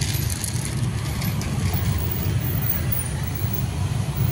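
Steady low rumble of motor traffic on the street.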